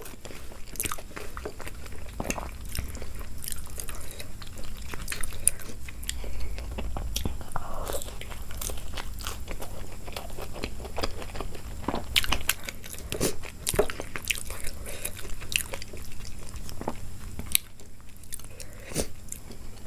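A person chewing and biting food close to the microphone, with irregular crunches and wet mouth clicks.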